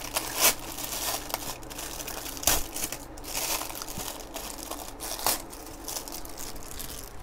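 Clear plastic bag crinkling irregularly as a desk clamp is pulled out of it, with a few sharper, louder crackles.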